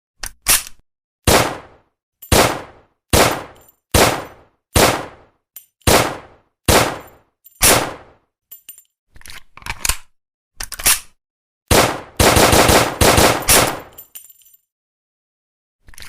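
Walther P38 9 mm pistol shots: about a dozen single shots roughly two-thirds of a second apart, each with a short ringing tail, then a few quieter shots. About 12 seconds in comes a dense, rapid string of shots lasting about two seconds.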